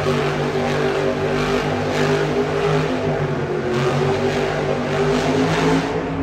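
Monster truck engine held at high revs while the truck spins donuts, its pitch holding fairly steady with small rises and dips.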